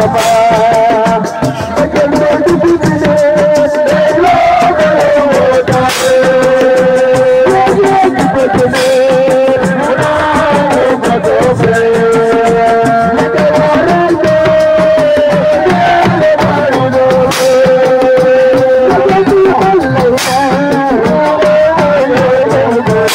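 Live Senegalese assiko band music: a voice singing a wavering melody over fast, dense hand drumming and percussion.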